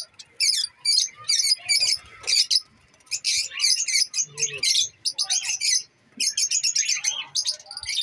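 Lovebirds chattering in an aviary: quick, high-pitched chirps in clusters, with short breaks.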